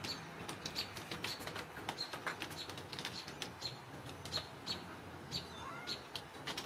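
Small birds chirping: many short, sharp chirps at irregular intervals, with a couple of brief rising calls.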